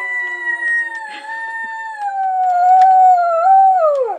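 A dog howling along with an outdoor warning siren: one long howl that slides slowly down in pitch, rises briefly near the end, then drops away sharply. Under it is the faint steady tone of the siren.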